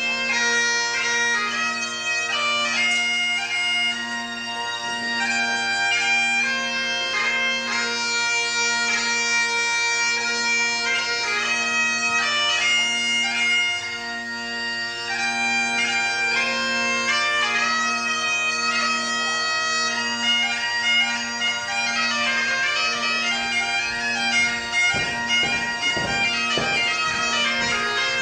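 Great Highland bagpipe playing a dance tune over its steady drones, the melody full of quick grace-note ornaments. Near the end, dull thuds of dancers' feet on the wooden floor join in.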